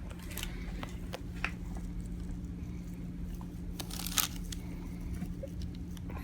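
Hands rubbing and pressing over the neck during soft-tissue massage: scattered small crackles and rubbing noises, with a cluster of sharper crackles about four seconds in, over a steady low hum.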